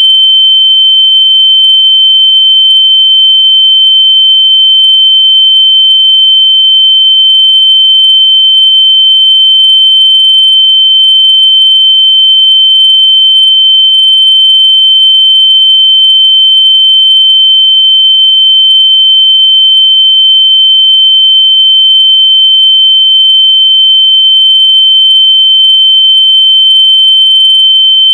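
Very loud, steady, high-pitched electronic tone: one pure pitch held without a break or change. It is a locator sound meant to be played through lost AirPods so they can be found by ear.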